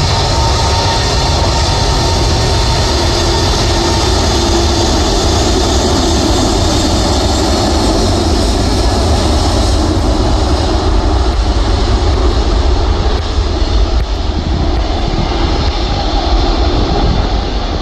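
Airbus A380's four jet engines running at high power as the airliner rolls past and away down the runway on its takeoff roll: a loud, steady rumble with a heavy low end.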